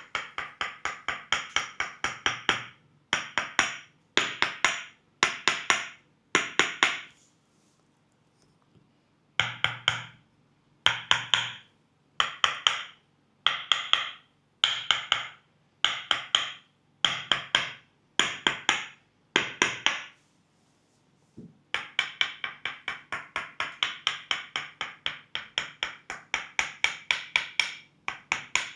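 Thai Tok Sen massage: a wooden mallet rapidly tapping a wooden peg held against the leg, giving hollow wooden knocks about six a second. The knocks come in short runs with brief pauses, stop for a couple of seconds twice, and run on unbroken near the end.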